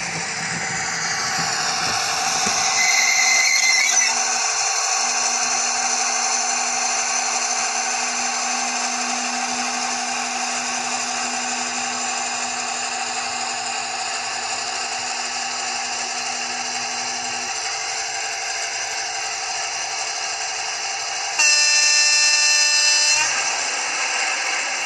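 Sound-fitted model Class 55 Deltic diesel locomotive playing a steady diesel engine drone through its speaker as it runs. About 21 seconds in comes a single loud horn blast of just under two seconds.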